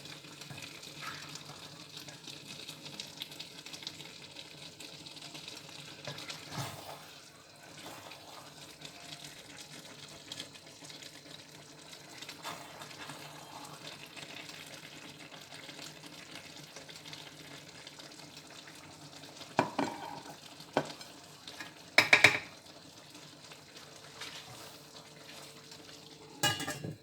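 A spoon scraping and stirring as food is served out of a pot, over a faint steady sizzle from the pot still on the hot stove plate. A few sharp, loud knocks of the spoon on the pot come near the end.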